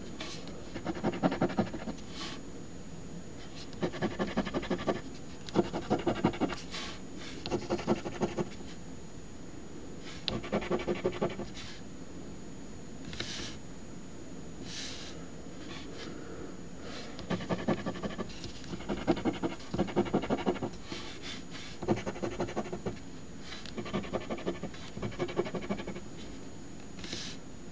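A coin scratching the coating off an instant lottery scratch ticket, in about ten short bursts of rapid back-and-forth scrapes with pauses between them.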